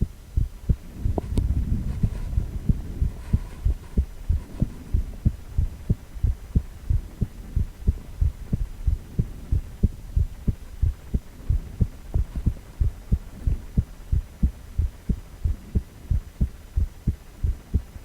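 A man's heartbeat: low, short beats repeating steadily in a regular rhythm. A brief low rumble swells under the beats about one to three seconds in.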